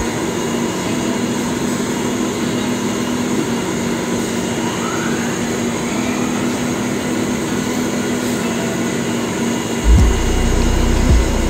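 Steady machine-shop drone of running machinery, a constant hum under an even noise, with a few dull low bumps near the end.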